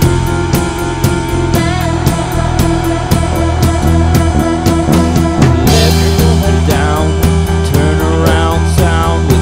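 Background rock music with a steady drum beat and bass; a wavering melody line comes in about one and a half seconds in.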